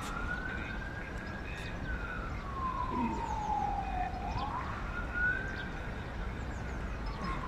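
Emergency-vehicle siren wailing: its pitch rises quickly, holds briefly, then falls slowly, in a cycle of about four seconds that runs through twice. A low steady rumble lies underneath.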